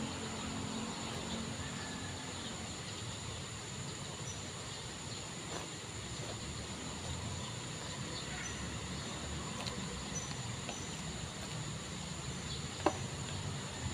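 Outdoor ambience: a steady high-pitched insect drone with faint, short bird chirps over a low rumble, and one sharp tap near the end.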